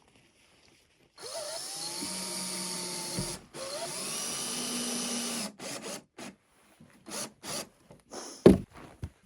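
Power drill driving screws into wooden boards: two long runs with the motor's pitch rising as it spins up, then several short bursts as the screws are seated. A sharp knock near the end is the loudest sound.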